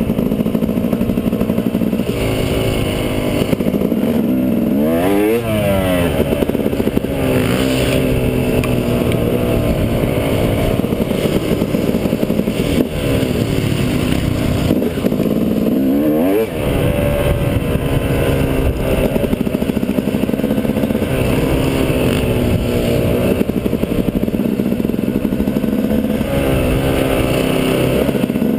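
Dirt bike engine running under load, heard on board. Its pitch rises and falls with the throttle, with a few quick swoops up and down.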